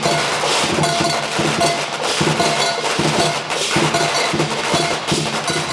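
A string of firecrackers going off in a dense, rapid crackle, mixed with percussive music in which a short note repeats about once a second.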